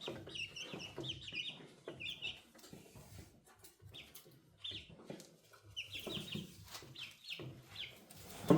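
Five-week-old chicks cheeping in short, high, repeated peeps, with scattered light clicks and a single louder thump near the end.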